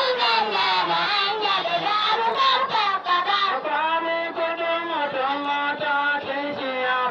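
Voices singing a Hausa bege, a devotional song in praise of the Prophet, amplified over a loudspeaker, with a faint steady hum underneath.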